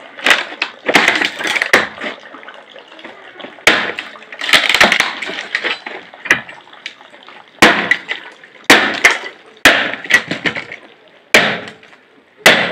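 Axe chopping into an upright log of firewood: about ten sharp strikes spaced one to two seconds apart, with the wood cracking as the log splits into pieces.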